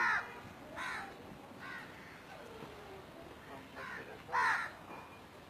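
Crows cawing, a harsh call every second or so, the loudest at the start and about four and a half seconds in.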